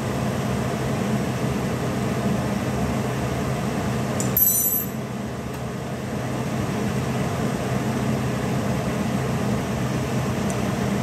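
Steady low appliance hum with faint frying of beef strips in oil in a stainless steel pot. About four and a half seconds in, a single short metallic clink.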